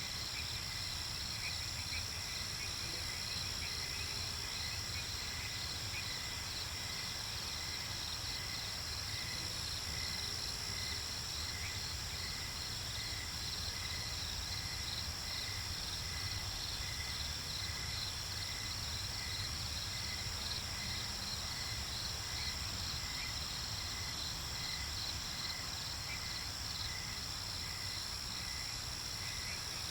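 Insects chirring steadily, several overlapping high-pitched trills, with a slower, regular pulsing chirp lower down.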